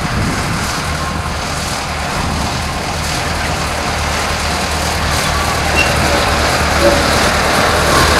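Small narrow-gauge diesel locomotive running steadily as it hauls its passenger train along the track, a low engine drone under the running noise, growing gradually louder as it approaches.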